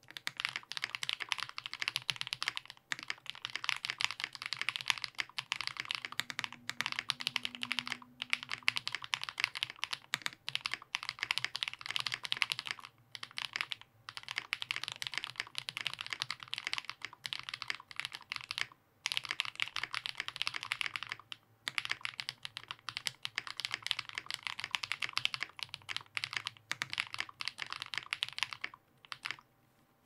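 Fast, continuous typing on an Angel65 mechanical keyboard with lubed and filmed DK Blueberry Swirls switches on a polypropylene plate and GMK Striker keycaps. The keystrokes come as a dense stream of sharp clacks, broken by a few brief pauses.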